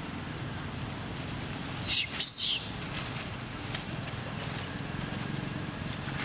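A young monkey gives a brief shrill squeal about two seconds in, sliding down in pitch, over a steady low rumble.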